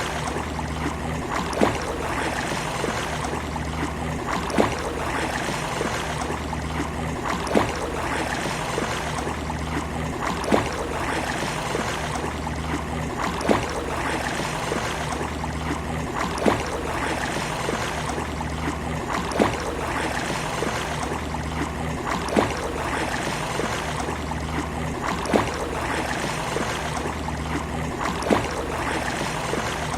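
Sea water washing and lapping at a beach in a steady wash with a low hum underneath. A sharp tick repeats about every three seconds.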